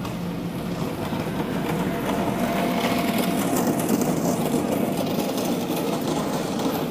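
Motor scooter towing a small wheeled cart passing close by, a rumbling, rattling noise that swells to its loudest midway.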